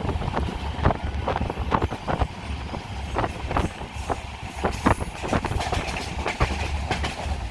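Moving passenger train: a steady low rumble with frequent, irregular clacks and knocks of the wheels running over the rails.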